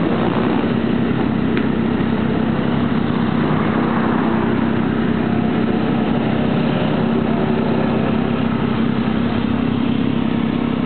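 A procession of Triumph motorcycles riding past one after another, their engines blending into a steady, unbroken drone.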